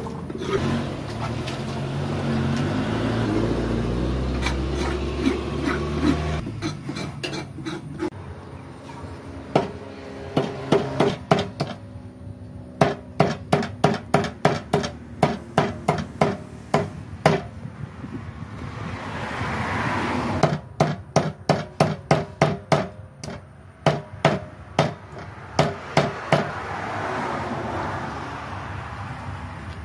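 Meat cleaver chopping eels into chunks on a round wooden chopping block: runs of sharp chops about two a second, with short pauses between runs. A low rumble fills the first six seconds, before the chopping starts.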